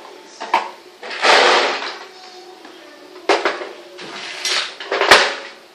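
Hard clatter of a Beyblade top and its launcher at a plastic stadium: a rasping burst about a second in, then several sharp knocks and clinks.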